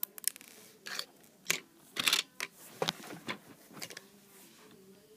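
Small plastic Lego pieces being handled, a run of sharp clicks and short scraping rattles that thin out about four seconds in.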